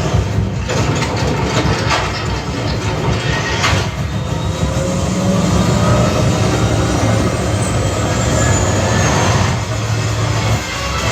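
Cinematic train sound effects from a Dolby audio demo soundtrack: steady heavy low bass under a loud passing-train din, with a few sharp knocks in the first few seconds and a slow gliding whistle-like tone around the middle.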